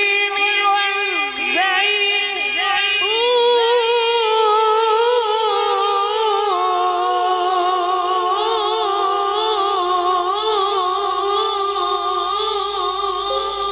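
A male Quran reciter's unaccompanied voice draws out one long melismatic phrase in tilawat style. It sweeps through ornamented turns for the first few seconds, then settles into a long high note held with a slight waver, stepping down a little about six seconds in.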